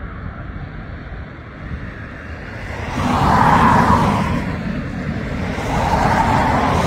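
Jet airliner engines rumbling; about three seconds in the sound swells into a loud roar that wavers up and down as the aircraft passes.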